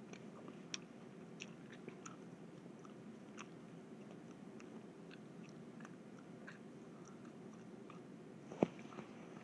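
Person chewing a mouthful of tissue paper: faint, scattered mouth clicks and smacks, with one sharper, louder click about eight and a half seconds in.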